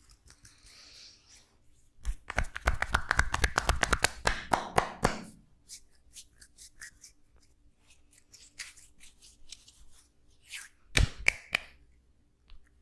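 Hands striking a person's body in a percussive massage: a fast run of about ten slaps a second lasting some three seconds. Scattered light taps follow, then two sharper slaps near the end.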